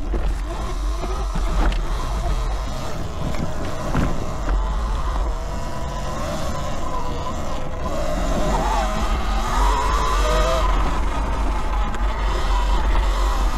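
72-volt Eride Pro SS electric dirt bike riding a trail: a steady rush of wind and ground noise, a few knocks, and a motor whine that glides up and down in pitch about halfway through.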